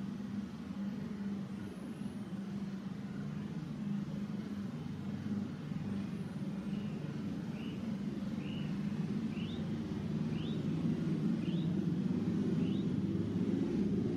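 A motor vehicle engine running with a steady low hum that grows slightly louder. Midway through, a string of short, high rising chirps comes about once a second for several seconds.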